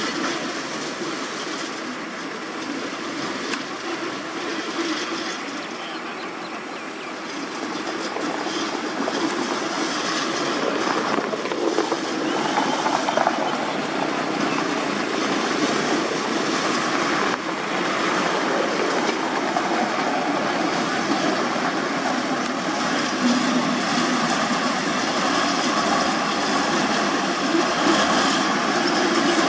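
Heavy road-construction machinery running: a steady machine noise with clatter, growing somewhat louder about eight seconds in.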